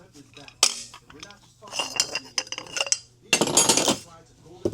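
Metal engine parts and tools clinking and clattering during an engine teardown: a sharp knock, a few ringing clinks, then a longer clatter of about half a second and another knock near the end.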